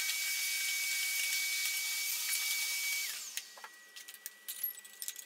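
Dust extractor running, its hose drawing air with a steady rushing hiss and whine as it is pulled off the planer-thicknesser's dust port. The suction noise drops away about three seconds in, leaving a few light knocks and clicks.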